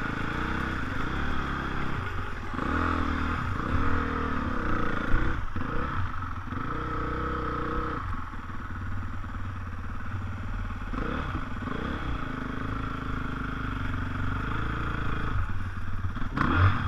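Small dirt bike engine running while riding, its revs rising and falling several times, with a louder rev near the end.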